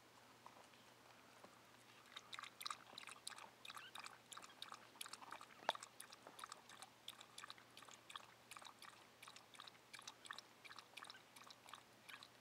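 A dog lapping water from a metal bowl: faint, quick wet clicks of the tongue, several a second, beginning about two seconds in.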